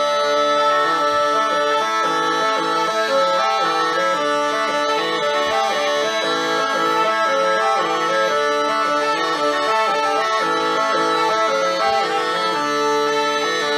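Bagpipes playing a brisk melody over a steady drone, without a break.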